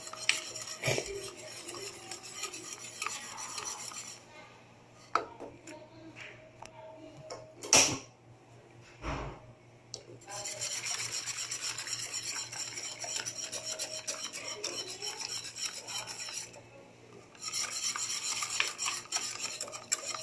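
Whisk scraping and rubbing against the pot while cream is whisked into hot tomato soup. It goes in stretches, with a quieter pause of several seconds in the middle broken by a few knocks, the loudest about eight seconds in.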